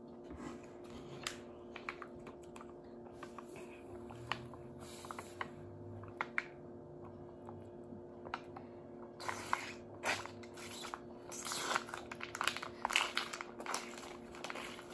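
Quiet chewing and small clicks while eating cup noodles, then from about nine seconds in louder rustling and sipping as juice is drunk through a straw from a plastic pouch.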